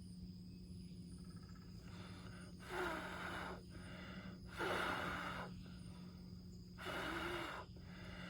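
A person blowing on smouldering tinder and wet kindling to coax a campfire into flame: three long puffs of breath about two seconds apart.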